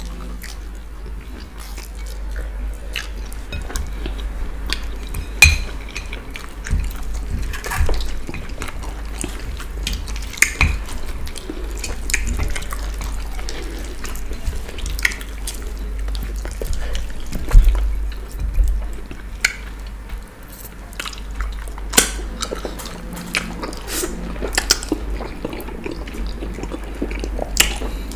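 Close-up eating sounds of fufu eaten by hand with slimy ogbono and okra soup: wet squelching and smacking of fingers in the soup, chewing, and scattered sharp clicks, the loudest about five seconds in and again about midway.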